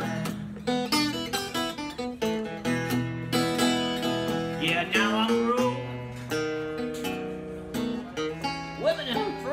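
Acoustic guitar fingerpicked in Piedmont blues style: an instrumental passage of picked treble notes over bass notes.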